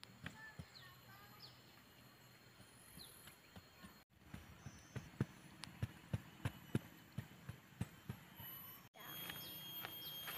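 Dull knocks of a flat wooden stick chopping and scraping into loose soil as stones are bedded for a stone cooking hearth, about two a second for several seconds. Faint bird chirps in the background.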